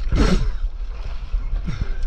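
Wind buffeting the microphone over the wash of broken waves and water splashing around a stand-up paddleboard, with a louder splashing rush about a quarter second in and a smaller one near the end.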